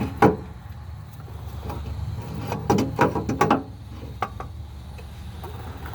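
Knocks and clunks of a starter motor being worked up into place under a truck, one near the start and a cluster of several about halfway through, over a steady low hum.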